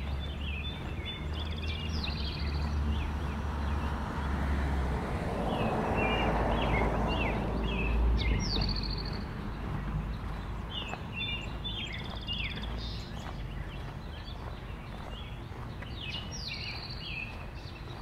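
Songbirds chirping over and over, in short repeated calls. In the middle, a broad whooshing swell of noise rises and fades.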